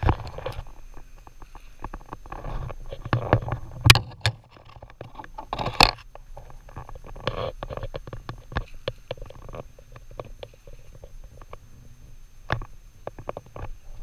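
Handling noise on a body-worn camera's microphone as a person in a bee suit moves: fabric rustling, low rumble and irregular clicks and knocks, with two louder bumps about four and six seconds in.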